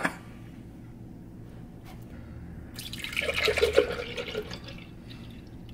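Vanilla almond milk poured from a carton into an empty glass blender jar, the stream starting about three seconds in and settling down after a second or so.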